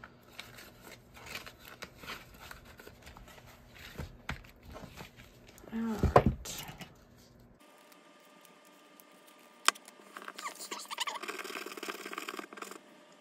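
Paper money and plastic binder pockets rustling under handling, then a loud low thump about six seconds in as a ring binder is closed. From about ten seconds in, a scratch-off ticket is scraped, a fast dry scratching.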